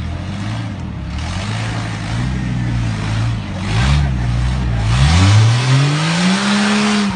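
Rock-crawling buggy's engine working in short revs as it climbs a steep rock ledge, then revving hard about five seconds in, its pitch rising and held high near the end.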